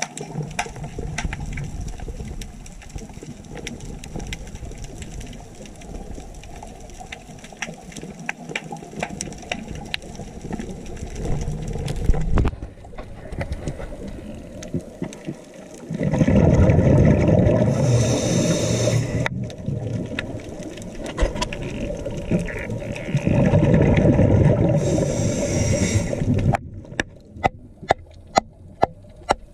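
Underwater sound heard through a diver's camera: a steady crackle of small clicks, broken twice by a loud rush of scuba exhaust bubbles lasting a few seconds each. Near the end, sharp taps about three a second as a hand pick chips at coral-encrusted rock on the seabed.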